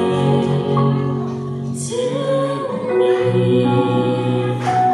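A man and a woman singing a gospel song together in a duet.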